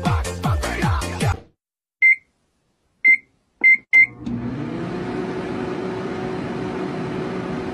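Electronic dance music with a falling bass kick stops about a second and a half in. Then a microwave oven's keypad beeps four times, short and high, and the microwave starts running with a steady hum.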